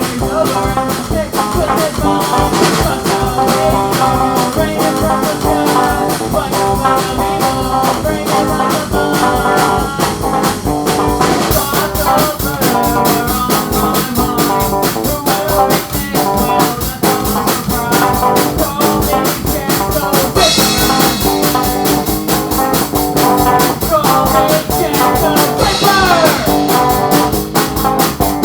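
Psychobilly band music: guitar and drums playing a song with a steady beat, with cymbals coming in more strongly partway through.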